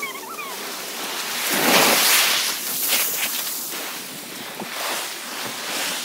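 Ocean surf breaking on a beach: a wave crashes and rushes in, loudest about two seconds in, then washes back and eases off.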